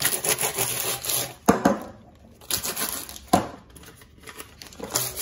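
Metal springform cake tin being handled on the worktop, with rustling and scraping and two sharp clattering knocks, about a second and a half in and again two seconds later.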